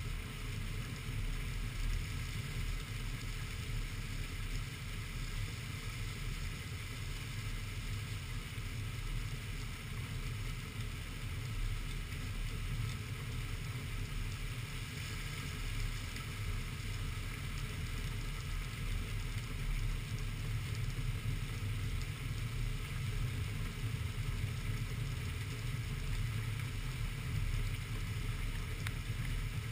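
Heavy rainstorm: a steady wash of rain noise over a strong low rumble.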